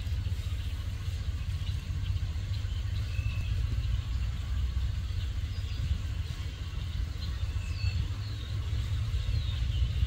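Truck engine idling, a steady low rumble that is the loudest sound, with scattered chirps and short gliding calls from a flock of birds over it.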